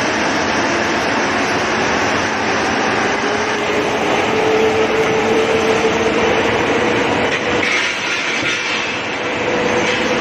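Log debarking and conveying machinery running: a loud, steady mechanical clatter with a faint hum that rises slightly in pitch partway through.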